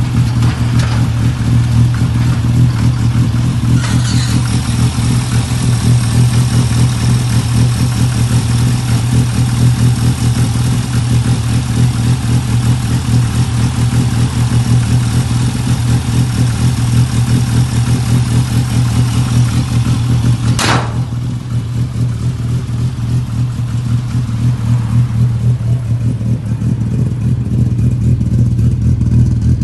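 Classic Mini's four-cylinder A-series engine idling steadily. Its sound is brighter and hissier heard close over the open engine bay, then there is a brief sharp sweep about 21 seconds in.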